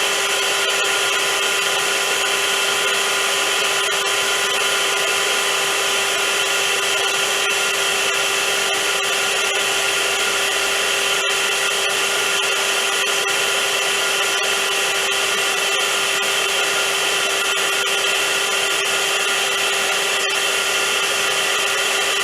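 Vacuum cleaner running steadily: a constant motor whine over an even hiss of rushing air.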